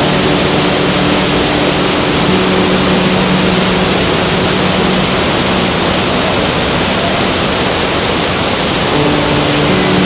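Large waterfall and rapids: a loud, steady rush of falling and churning water, with a faint low hum underneath.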